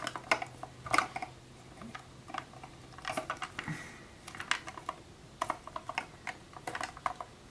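Hard clear plastic yo-yo display case clicking and tapping in the hands as it is turned over and its lid is picked at, trying to find how it opens. Irregular sharp clicks, several in quick clusters.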